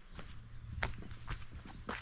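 Footsteps crunching on a gravel footpath at an even walking pace, about four steps, over a steady low rumble.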